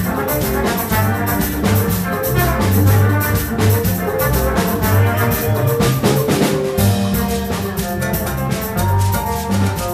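Live Afro-Latin band playing: drum kit and percussion keep a steady beat under a bass line and melodic parts.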